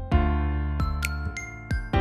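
Background music: gentle keyboard notes struck in a steady rhythm, with bright chiming high notes.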